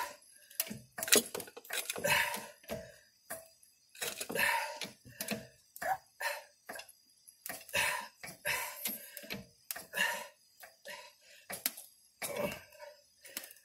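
Irregular metallic clicks and clinks from working a 10-ton hydraulic puller pressing a rust-seized axle out of its hub.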